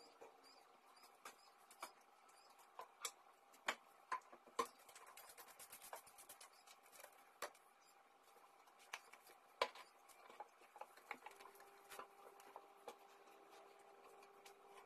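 Light scattered clicks and taps from housework, objects being handled and set down while a wooden coffee table is wiped with a cloth, in an otherwise near-silent room. A few taps are sharper than the rest. A faint steady hum comes in about eleven seconds in.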